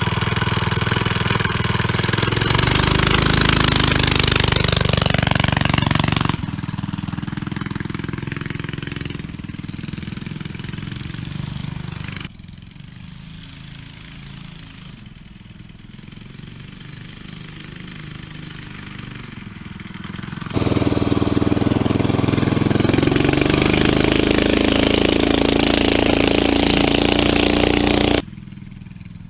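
Predator 212cc single-cylinder four-stroke engine on a motorized mountain bike running under way, with its pitch rising as it revs up. It is loud early and again near the end, quieter in between, and the sound changes abruptly several times.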